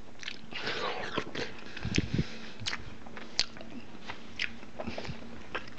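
A person chewing a mouthful of ripe watermelon, with many short wet clicks and smacks of the mouth.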